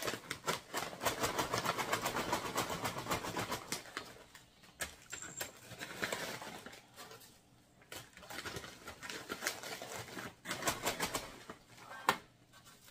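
Foil storage bag crinkling as it is handled, shaken down and packed with dry, crumbly freeze-dried soup pieces, in uneven bursts of quick crackles with quieter gaps between.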